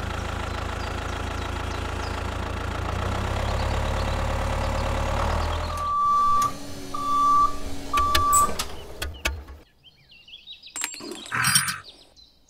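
Tractor engine running steadily, rising slightly about three seconds in, then cutting off about six seconds in. Three short beeps about a second apart follow, then a few clicks.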